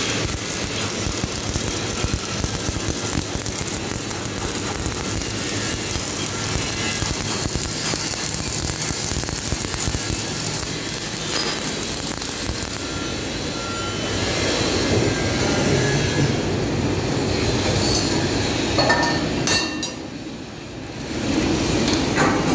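Electric arc welding on steel: the steady crackling sizzle of the arc, with a break of about a second near the end before it starts again.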